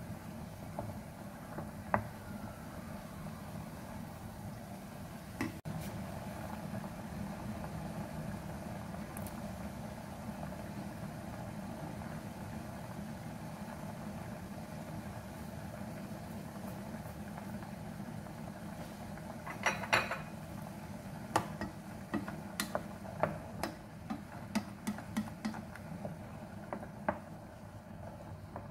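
Black beans boiling hard in sweetened soy sauce in an enamel pot, a steady bubbling. In the last third, a wooden spoon knocks and scrapes against the pot as the beans are stirred, with a loud cluster of knocks first.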